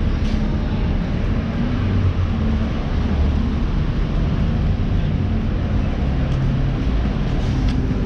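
Street traffic: vehicle engines running, a steady low hum.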